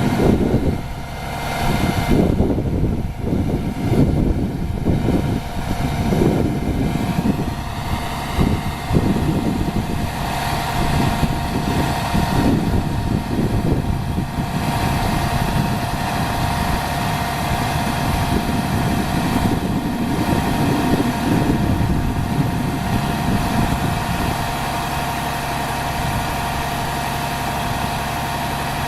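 Vehicle engine idling steadily, with a steady whine held over the rumble; the rumble is uneven in the first half and settles about halfway through.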